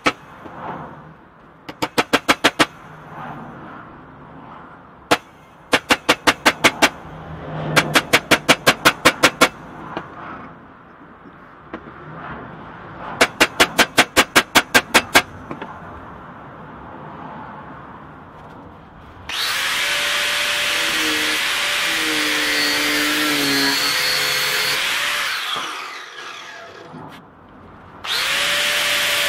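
Four quick runs of sharp metal taps, a hammer driving a homemade steel wedge into the top of a new axe handle. About two-thirds of the way through, an angle grinder starts and runs steadily, its motor pitch dipping as it bites, trimming the wedge and handle end flush with the head; it stops, then starts again near the end.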